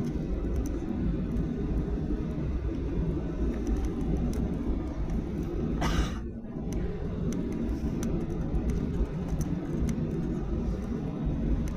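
Steady low rumble of a Boeing 737-800's cabin, engine and airflow noise heard from a passenger seat. A brief hiss about halfway through is followed by a short dip in level.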